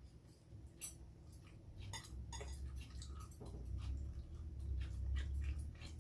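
Eating sounds: chewing food, with scattered light clicks of utensils against dishes and a low rumble that swells through the second half.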